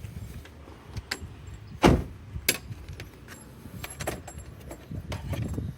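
Handling noises at a car: scattered clicks and taps with one loud thump about two seconds in, from a coaxial cable being worked through the open car window.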